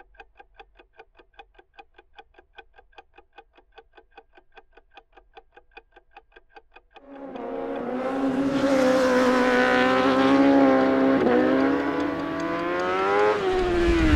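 Rapid, even clock-like ticking, then a Honda CBR1000RR superbike's inline-four engine comes in loud at high revs about seven seconds in. Its pitch dips sharply twice near the end.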